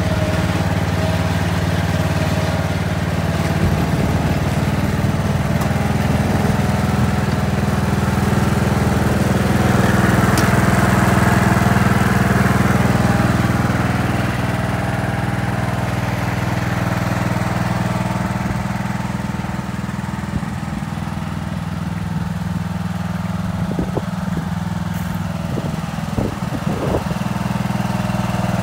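Husqvarna YTH170 riding mower's engine running steadily while it tows a loaded firewood trailer. The drone swells slightly about a third of the way in, and a few short knocks come near the end.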